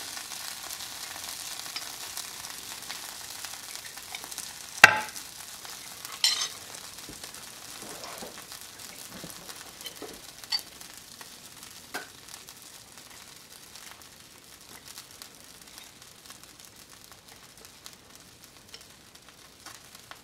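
Oven-hot breaded chicken legs and thighs sizzling steadily in a glass baking dish as melted bird fat is spooned over them. A metal spoon clinks against the glass cup a few times, loudest about five seconds in.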